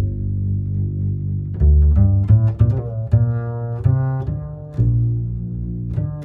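Background music: a low melody of separate plucked notes over a steady bass line.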